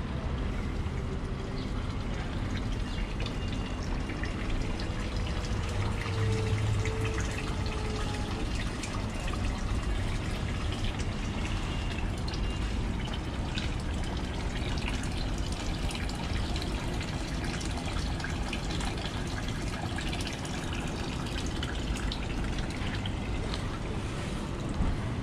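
Running water trickling steadily, with many small drips scattered through it.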